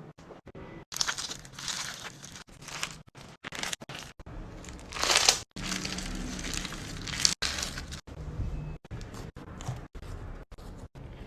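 Slime being squeezed and pressed, giving crackly, crinkling squishes in short bursts, loudest about five seconds in.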